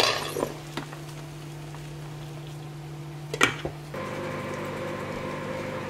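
A glass lid clatters onto a stainless steel pot of boiling meat, followed by a low steady hum with faint bubbling. A single sharp clink comes about three and a half seconds in.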